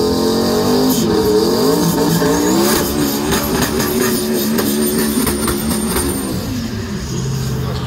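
Single-turbo Ford Mustang 5.0 V8 revving hard as it launches, its pitch wavering up and down with sharp crackles and a thin high whistle over the engine, then dropping away near the end as the car pulls off down the strip.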